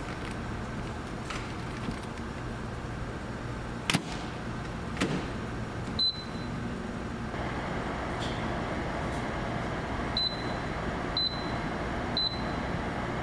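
Steady hum of a ferry's engines and machinery. A few clicks and knocks sound in the first five seconds, a further mid-pitched hum joins about halfway through, and short high electronic beeps come once just before halfway and three times about a second apart near the end.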